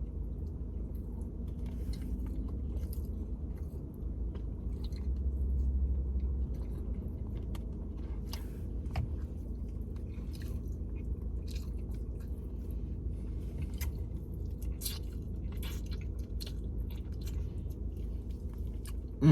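Close mouth sounds of a man eating a plate of jerk chicken with rice and peas: repeated biting and chewing with small wet clicks and crunches, over a steady low hum.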